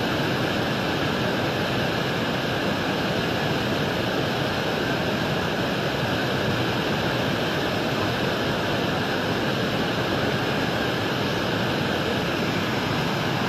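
River in flash flood: a fast, muddy torrent rushing and churning in one steady, unbroken rush.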